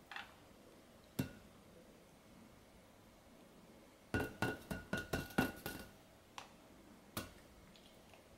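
A cat's paw batting a taut inflated rubber balloon: a single sharp tap about a second in, then a quick flurry of about eight taps, each with a short ringing tone, followed by two more lone taps.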